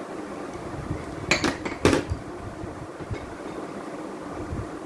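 A steel spoon clinking against dishes while spices are added to a bhel puri mix: three sharp clinks close together about a second and a half in, the last the loudest, over a steady low background hum.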